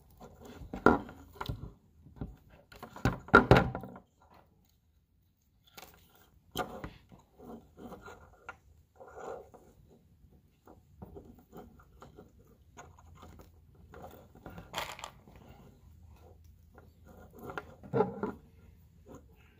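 Handling noise of stripped wires and small plastic connectors of a car-stereo wiring harness being twisted and sorted by hand: irregular rustles, clicks and knocks, loudest in two clusters in the first four seconds, then a couple of seconds of dead silence before the handling sounds resume.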